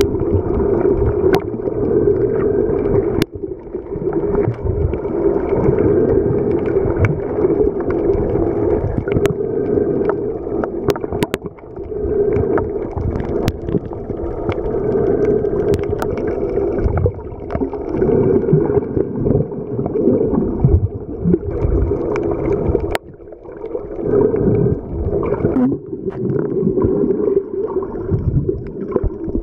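Underwater sound picked up by a camera in a waterproof housing: a continuous muffled rush and rumble of water, with scattered sharp clicks and a few brief dips in level.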